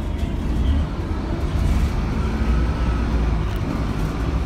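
Scania K280UB city bus running, heard from inside the passenger cabin: a steady low engine and road rumble.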